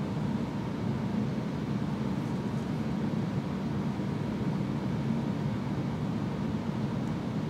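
Room tone: a steady low hum with no distinct events.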